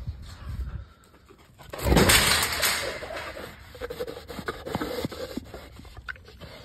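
Feral boar at a welded-wire trap panel: a loud sudden burst of noise about two seconds in, then a scatter of short knocks and rattles from the wire as the hog pushes against it.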